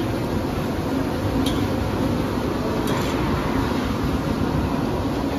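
Steady rumble of a restaurant kitchen at work, with two light metal clicks of a utensil about a second and a half and three seconds in.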